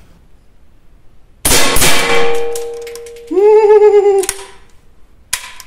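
Two shots from an Armi Jager AP80 .22LR rifle about a second and a half in, a fraction of a second apart, followed by a ringing metallic tone that fades away. About a second later a wavering note is held for about a second, and a single sharp click comes near the end.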